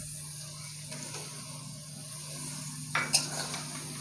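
Onions and garlic paste frying in oil in an aluminium kadai, sizzling steadily over a low hum. About three seconds in, tomato pieces go into the hot oil, which brings a sudden louder sizzle, and a metal spatula starts scraping and stirring the pan.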